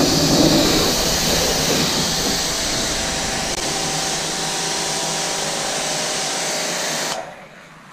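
Kranzle 1122TST electric pressure washer running with the spray gun open, its pump motor humming steadily under the hiss of the water jet. Motor and spray cut off abruptly about seven seconds in when the trigger is released.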